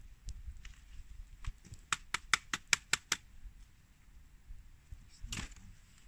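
A quick run of about seven sharp clicks, some five a second, from small gear being handled at the start of a snowshoe repair, then a short rustling scrape near the end. A low rumble of wind on the microphone runs underneath.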